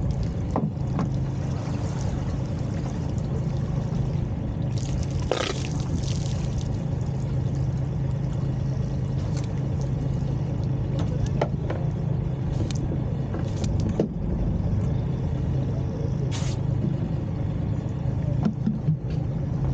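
A small fishing boat's engine running steadily at idle, a constant low hum, with scattered knocks and clicks. There is a short rushing noise about five seconds in and another near the end.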